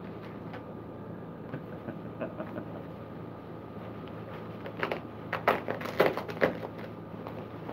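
Plastic packaging crinkling and rustling as it is handled, in short scattered bursts with the loudest run about five seconds in, over a steady hum of room air conditioning.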